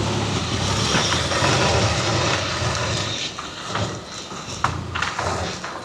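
Car engine running at low speed as the car is driven slowly into the workshop bay, easing off about three seconds in, with a short knock near the end.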